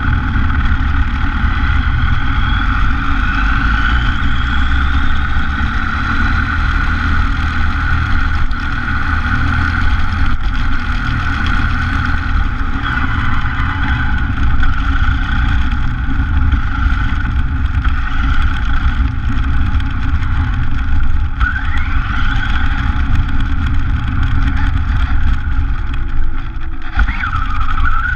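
An RC car driving on pavement, heard from a camera on the car itself: a steady rumble from the tyres and drivetrain under a constant mid-pitched hum. A whine rises in pitch a few times as the car speeds up.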